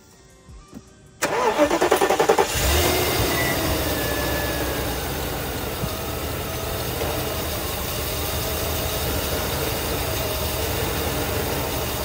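Mercedes M117 V8 cranked on the starter for about a second, then catching and running at a fast idle that slowly settles. The idle carries a slight misfire, which the owner puts down to fuel.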